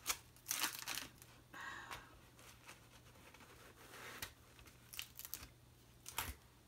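Plastic film on a rolled diamond painting canvas crinkling and sticky packing tape being peeled and torn off it, in a string of short, irregular bursts.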